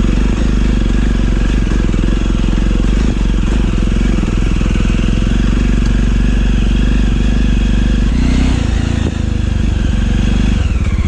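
Motorcycle engine running steadily under way. Its note shifts about eight seconds in.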